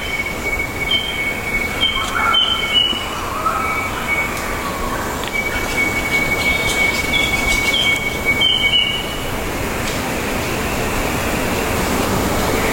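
Jungle ambience: a steady high-pitched whine that drops out for a moment and stops about nine seconds in, over an even hiss. Short whistled bird calls come in two clusters, one early and one around seven to nine seconds.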